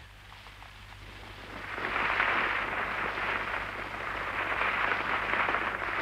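Heavy rain hissing, swelling up about a second and a half in and then holding steady.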